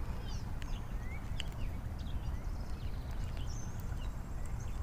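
Birds calling: short rising chirps, repeated several times, and scattered higher twitters. Under them runs a steady low rumble, with a few faint clicks.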